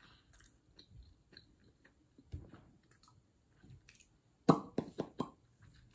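Soft mouth noises, small lip smacks and tongue clicks, then a quick run of four or five louder sharp smacking sounds about four and a half seconds in.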